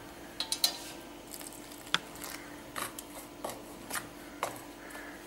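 Steel spoon clinking and scraping against a stainless steel bowl while mixing rice flour dough, a series of separate light taps.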